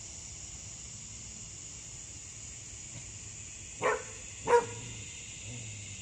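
A dog barks twice in quick succession about four seconds in, the second bark louder. A steady high chirring of crickets carries on underneath.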